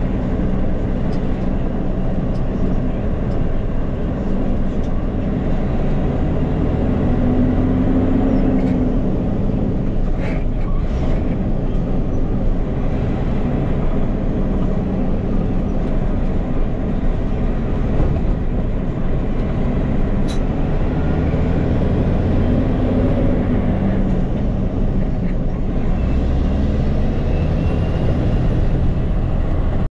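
Dump truck's diesel engine running, heard from inside the cab. Its note rises and falls a few times as the driver works through the gears.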